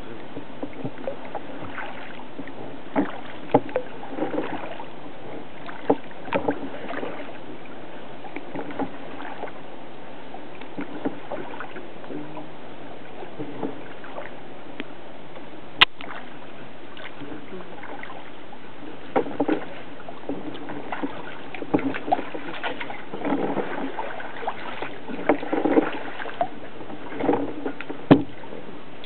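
Water splashing and dripping around a kayak as it is paddled, over a steady hiss. Irregular sharp knocks come through, the loudest near the end.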